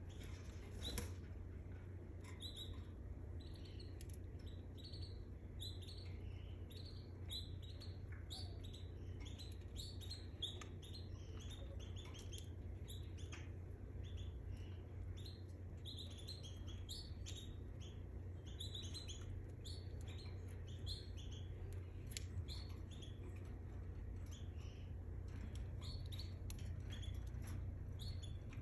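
Canary singing and chirping: many short, high chirps, some in quick runs, over a steady low hum.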